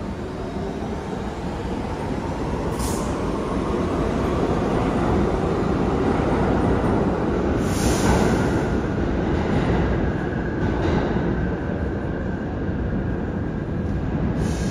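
New York City subway train running through the station: a steady rumble of wheels on rail that builds to its loudest about eight seconds in and then eases. Two short high-pitched bursts, about three and eight seconds in.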